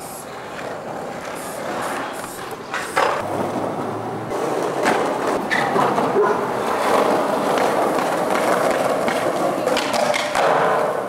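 Skateboard wheels rolling on concrete, a steady rolling noise that builds and grows louder partway through, with several sharp clacks of the board.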